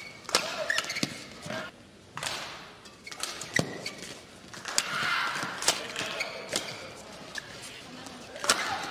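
Badminton rally: rackets sharply striking the shuttlecock back and forth at irregular intervals of about a second, with short squeaks of court shoes between the hits.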